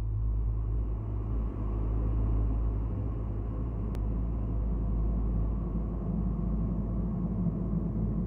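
Low, steady rumbling drone of an ambient sound-design soundscape, with a faint click about four seconds in.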